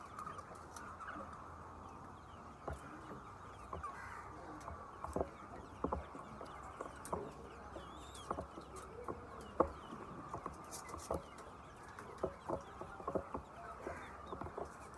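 A flock of chickens clucking, with short scattered calls over a steady background of the flock, and many sharp taps and clicks throughout.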